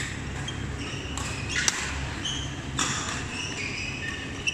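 A badminton rally: two sharp racket-on-shuttlecock hits about a second apart, with short high squeaks of court shoes on the mat in between, over the steady low hum of a sports hall.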